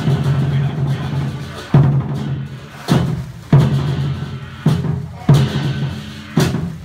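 Lion dance percussion music: a steady low ringing at first, then about five loud strikes at uneven intervals, each ringing on.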